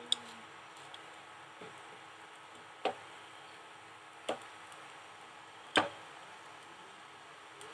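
A steel ladle spreading batter on a hot tawa, its metal knocking against the pan in a few sharp clicks about a second and a half apart, the loudest about six seconds in.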